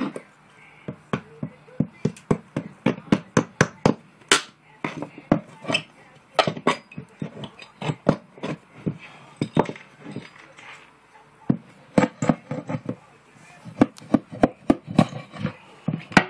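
Hand tools working old staples out of a plywood subfloor: quick, irregular metallic taps and clinks of a hammer driving a screwdriver under the staples, with pliers pulling them. The taps come in clusters with short pauses between.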